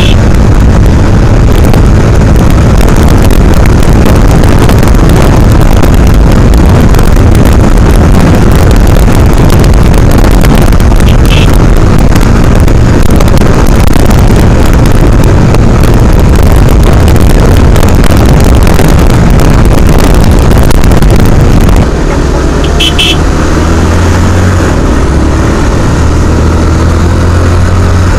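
Wind rushing over the microphone of a motorcycle moving at speed on a highway, loud and steady. About 22 seconds in the wind lessens and the motorcycle engine comes through, its pitch rising.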